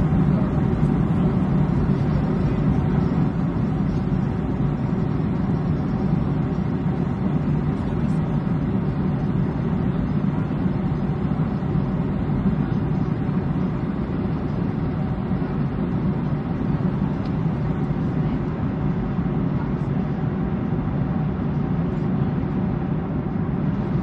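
Steady low rumble of an airplane, with faint steady tones above it.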